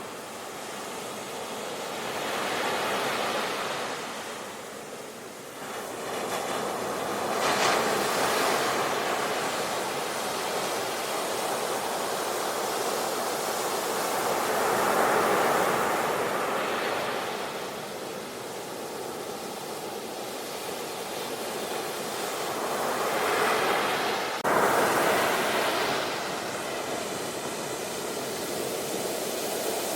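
Ocean surf: waves breaking and washing on a shore, swelling and falling back every few seconds, with a sudden step up in loudness about 24 seconds in.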